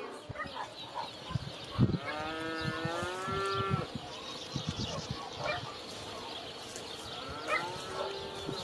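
A farm animal's long drawn-out call about two seconds in, wavering at first and then held steady, and a second, shorter call near the end, over scattered knocks and clicks.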